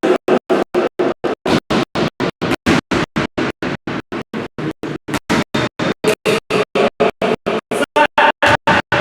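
Music cutting in and out about four times a second, each short snatch separated by complete silence, like a stutter or gating effect; it grows a little louder near the end.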